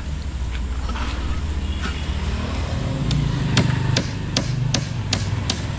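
A hammer striking in quick, even blows, about three a second, starting about three seconds in, over a steady low rumble.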